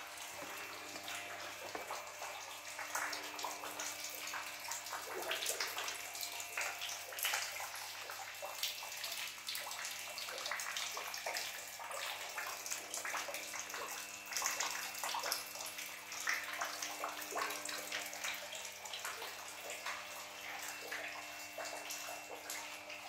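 Water splashing and dripping irregularly, over a faint steady hum.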